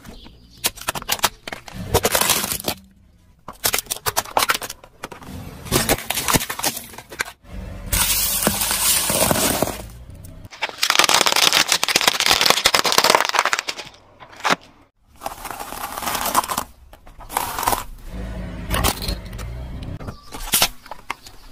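Plastic toys and bags of dry pasta being crushed under a car tyre, one object after another: a run of sharp cracks and snaps, with two longer stretches of dense crunching midway.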